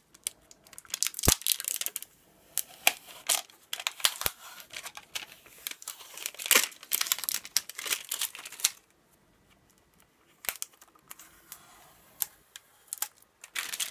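Clear plastic protective film being peeled off a racing quad's plastic body, crinkling and crackling in many quick sharp snaps. The crackling stops for about a second and a half around two-thirds of the way through, then starts again.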